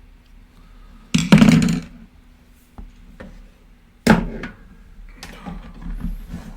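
Knocks and thuds of things being handled on a workbench: a loud thud about a second in, a sharp knock about four seconds in, then lighter irregular clatter.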